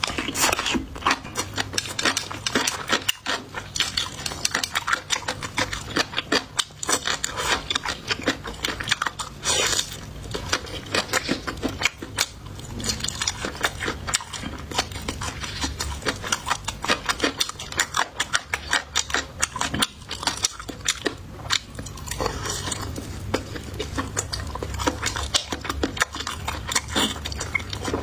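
Close-up chewing and crunching of food, with dense, irregular crackling clicks, and utensils now and then clicking against dishes.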